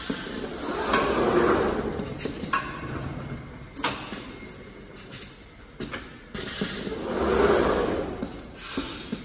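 Jug palletizer cycling: the machine's running noise swells and fades twice, about a second in and again near the end. Scattered clicks and knocks come as the gripper handles the plastic jugs.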